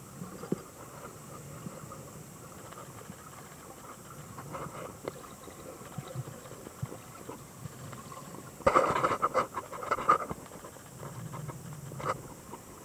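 Muffled underwater sound picked up by a snorkeller's camera: a low rushing hiss with small clicks. About nine seconds in there is a louder noisy rush lasting a second or so, and a brief one near the end.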